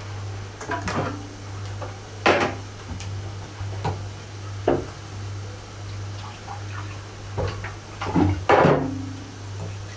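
Kitchen clatter: scattered knocks and clunks of pots and utensils being handled, loudest about two seconds in and again near the end, over a steady low hum.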